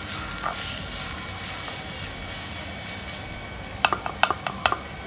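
Steady hiss and sizzle of food cooking in clay pots over a fire, the sambar at the boil, with a quick run of five or six sharp clicks about four seconds in.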